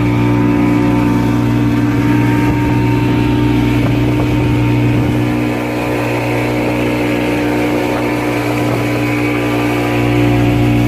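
Motor boat's engine running steadily with an even hum.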